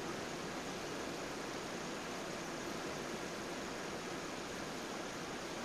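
Steady rushing noise inside the cockpit of a Cessna 172SP gliding on final approach with the engine throttled back to idle, even and unchanging with no clear engine note.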